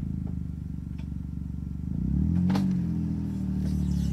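Petrol engine of a John Deere Gator 4x4 utility vehicle running under load as it crawls over rough ground with its differential locks engaged. The engine note rises about two seconds in, with a single knock at about the same time.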